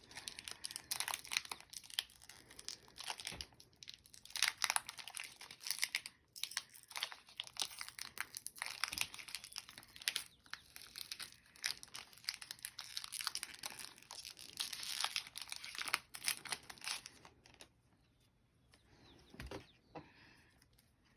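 Foil wrapper of a Pokémon booster pack crinkling and tearing as it is opened by hand: a dense, irregular crackle that thins out about three quarters of the way through.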